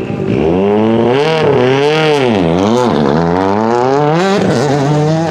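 Ford Focus WRC rally car's turbocharged 2.0-litre four-cylinder engine revved hard several times, the pitch rising and falling, then a longer climb that drops off sharply a little after four seconds, with sharp cracks between the revs.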